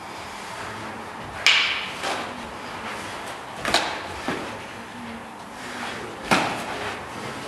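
Sharp hits of blows landing during knife sparring: strikes and kicks smacking against bodies and padding, four in all, the loudest about a second and a half in and another near the end, with two smaller ones in between.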